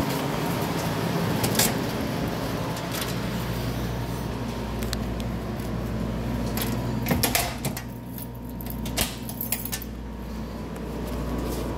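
A door being handled and footsteps in sandals: scattered clicks and knocks, the loudest a cluster about seven seconds in. Under them runs a steady hiss and low hum, and the hiss quietens after the knocks.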